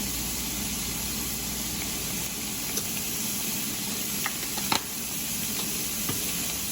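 Chopped cauliflower, corn and black beans frying in olive oil in a pan, a steady sizzle, with a few short clicks scattered through it.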